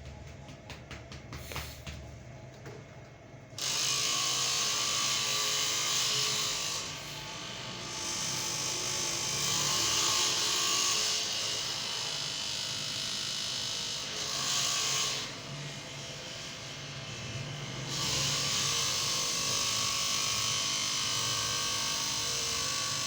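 Small electric motor buzzing, starting about three and a half seconds in, with a few brief drops in level.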